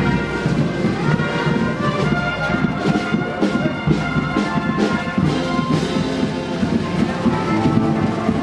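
Brass band music, held horn notes with a few percussion strikes.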